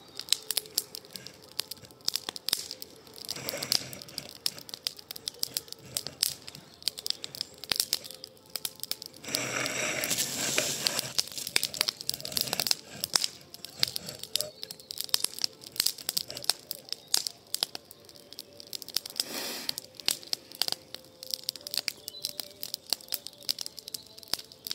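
Campfire of pruned branches crackling and popping in a fire bowl, with dense irregular snaps and a few louder stretches of rushing hiss, the longest from about nine seconds in.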